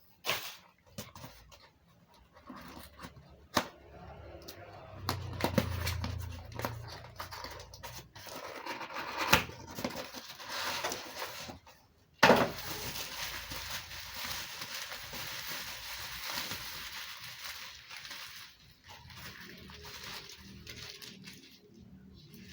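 Packaging being opened and handled: scattered clicks and crinkling, a sharp snap about twelve seconds in, then a long steady rustle like tearing or peeling.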